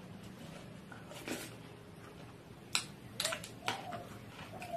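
Close mouth sounds of someone eating by hand: wet lip smacks and chewing clicks, sparse at first, then several sharp ones in quick succession in the second half.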